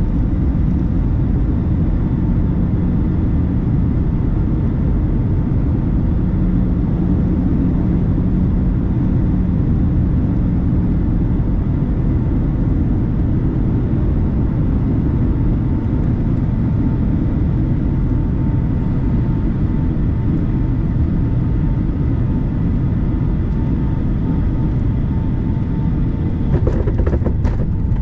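Steady cabin noise of a Boeing 757-300 on final approach, heard from a window seat over the wing: a loud, even rush of airflow and engine noise, with a low hum over the first dozen seconds. A few sharp knocks and rattles come near the end as the jet comes down over the runway.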